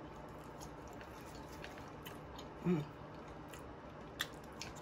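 Close-miked chewing of French fries, with faint wet mouth clicks and smacks. A short hummed "mm" comes about halfway through.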